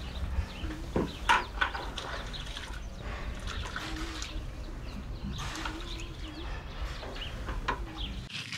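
Water splashing and trickling, with scattered sharp clicks and knocks.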